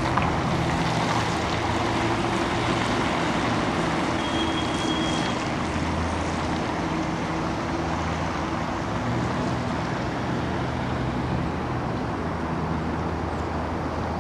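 Steady low engine hum of an idling motor vehicle, with general street traffic noise.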